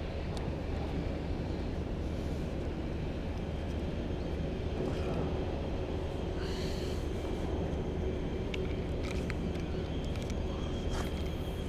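A steady low mechanical rumble with a faint constant hum, with a few light clicks.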